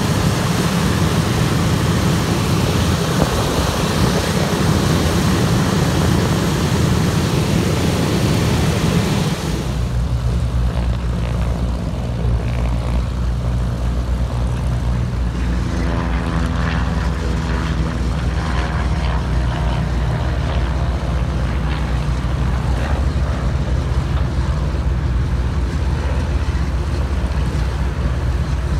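Radial engines and propellers of a B-17 Flying Fortress running loud as it taxis past. About a third of the way in there is an abrupt change to a quieter, steady low engine drone from a small single-engine propeller plane taxiing.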